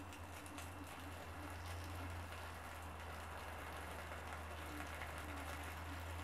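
Faint crackling and hissing of a small wood fire catching between split firewood logs, over a steady low hum.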